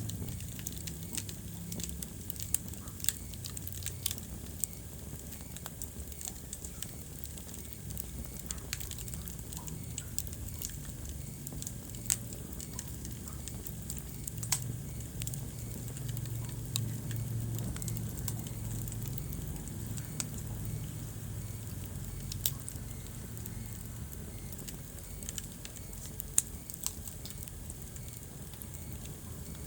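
Wood fire burning in a fireplace: a steady low rumble of flames with scattered sharp crackles and a few louder pops.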